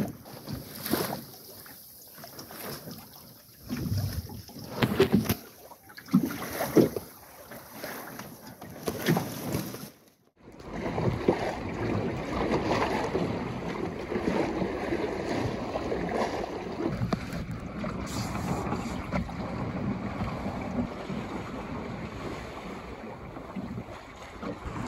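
Wind buffeting the microphone, with uneven slaps and knocks of water against a wooden Wayfarer sailing dinghy under way. After a sudden cut about ten seconds in, a steady rush of sea water along the hull with wind.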